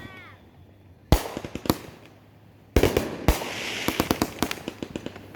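Fireworks going off: a sharp bang about a second in, two more bangs close together near three seconds, then a fast string of crackles.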